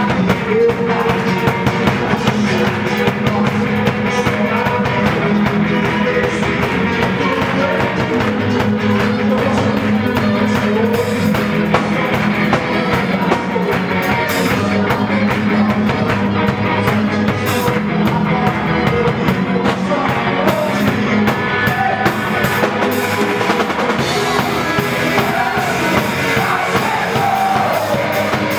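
Live band music with drum kit and guitar, and some singing: a gospel worship song.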